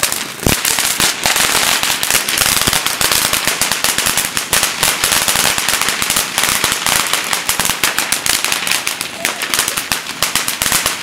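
Ground fountain firework spraying sparks: a loud, continuous rushing hiss packed with rapid crackling pops.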